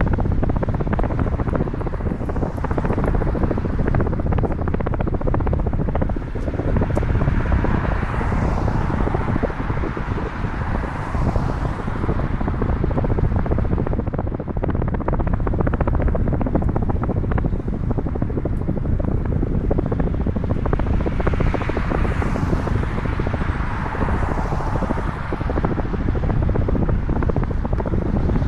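Wind rushing over the microphone of a camera riding on a moving bicycle: a steady low rumble, with two swells of higher rushing noise, one about eight seconds in and one just past twenty seconds.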